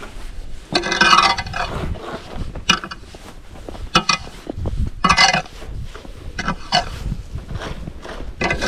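Snow shovel scraping across pavement in several separate strokes, some with a harsh grating screech.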